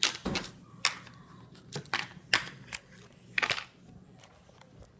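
A run of sharp clicks and knocks, about six in the first three and a half seconds, from an orange plastic slime tub and its lid being handled and set against the table.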